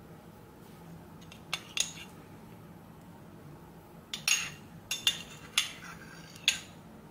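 A metal spoon clinking and scraping against a ceramic plate while working a crumbly shortbread dough. There are two light clinks about a second and a half in, then a run of about five louder clinks in the second half.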